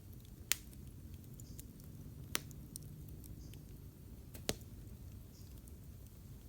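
Campfire crackling: a steady low rumble from the burning wood with scattered small ticks and three sharp pops, about two seconds apart.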